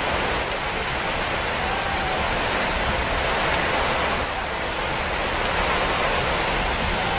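Steady sound of rain falling: an even hiss with no rhythm or pitch to it, holding the same level throughout.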